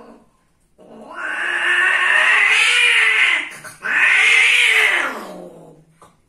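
Female cat caterwauling while being mated: two long, loud yowls, each rising and falling in pitch, with a short break between them, the second fading away as the pair breaks apart.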